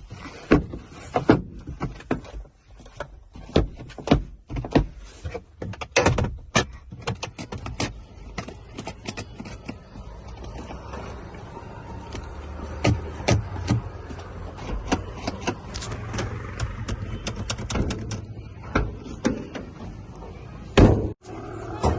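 Honda City car: a run of sharp clicks and knocks, then the engine running steadily from about ten seconds in, with a few more knocks and one loud thump near the end.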